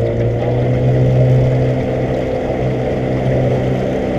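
Small boat's outboard motor running steadily at cruising speed, with the boat under way.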